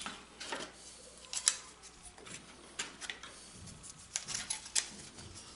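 Light, scattered clicks and taps of thin notched wooden divider strips being handled and fitted together into a tray grid.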